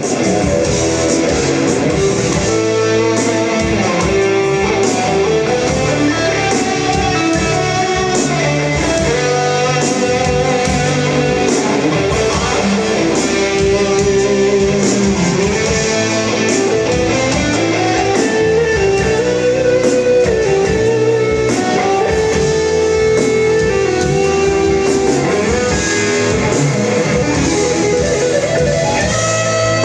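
Jackson X DK3XR HSS electric guitar played through a Headrush pedalboard's JCM800 preamp simulation with a Tube Screamer and greenback cab, an overdriven lead tone, playing an improvised solo with bent notes.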